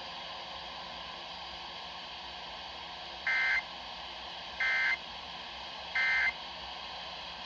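Emergency Alert System end-of-message data bursts: three short, buzzy two-tone squawks of SAME modem data, evenly spaced about 1.3 s apart, over steady radio hiss. They signal that the alert message has ended.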